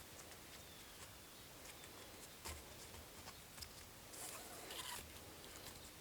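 Faint rustling and a few light clicks and scrapes of paracord being worked and pulled tight around a wooden pole lashing.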